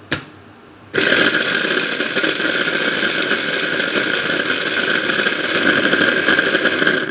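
Electric mini food chopper grinding dried shrimp in its glass bowl: a brief pulse at the start, then about six seconds of steady high motor whine that cuts off just before the end.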